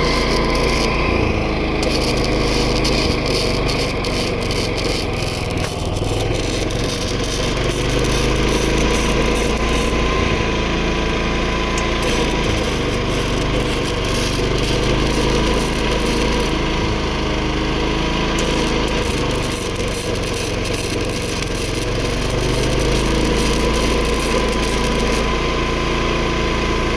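Arc welding crackle from an inverter arc welder, with the Predator 11,500-watt inverter generator powering it running steadily under load and a thin steady whine.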